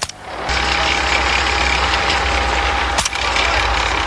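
Tracked armoured vehicle's engine running steadily, a loud low rumble with a constant whine over it, cutting in suddenly about half a second in, with one sharp knock about three seconds in. A rapid burst of gunfire ends right at the start.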